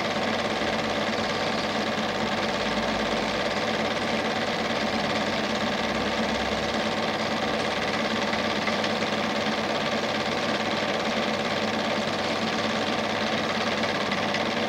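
Standard 8 cine projector running: a steady mechanical whirr with constant humming tones.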